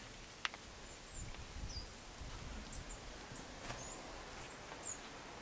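A small bird's short, high chirps, about ten of them, over faint outdoor background noise, with a single sharp click just under half a second in.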